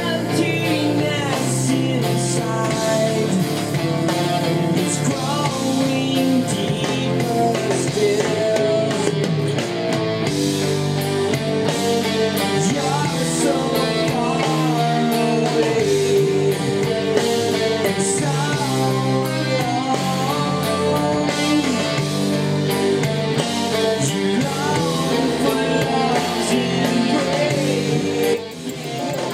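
Rock song with singing, guitar and drums, played through a pair of Technics SB-F1 mini monitor loudspeakers. It runs steadily, with a brief dip in loudness near the end.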